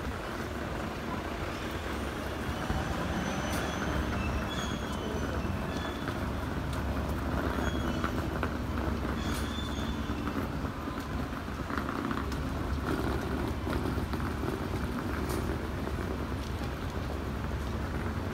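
Steady street noise of a large crowd marching without chanting or talking: a low traffic-like rumble under the shuffle of many feet, with a few short high chirps.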